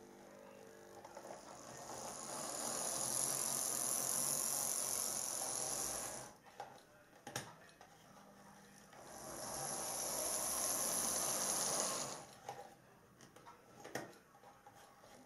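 Model Deltic diesel locomotive (D9003 Meld), non-digital, running round the layout. Its motor and wheels make a hissy whir that swells up and fades away twice as it passes, with a few sharp clicks in between.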